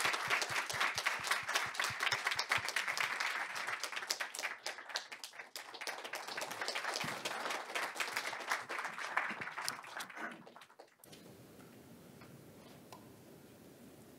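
Audience applauding, the clapping thinning out and dying away about eleven seconds in, leaving quiet room tone.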